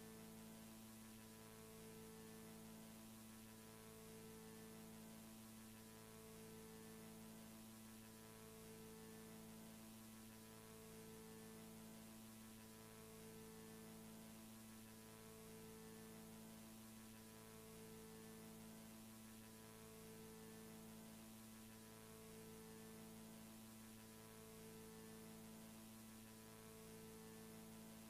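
Near silence: a faint electrical hum with a stack of overtones over a steady hiss, some of the overtones pulsing on and off about every two seconds.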